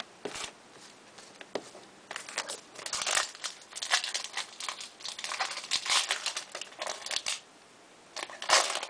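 Crinkling and rustling from an Upper Deck hockey card pack and its cards being handled, in irregular bursts with short pauses.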